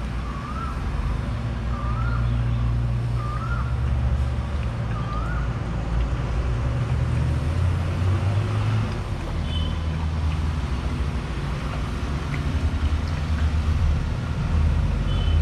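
Steady low rumble throughout, with a small bird chirping four times, about once a second, in the first few seconds.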